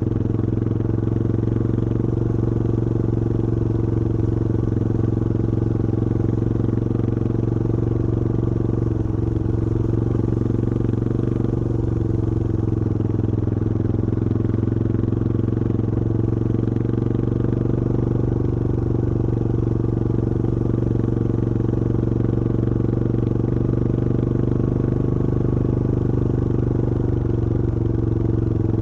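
Yamaha XT225 Serow's air-cooled single-cylinder four-stroke engine running at a steady speed under way, its note shifting only slightly.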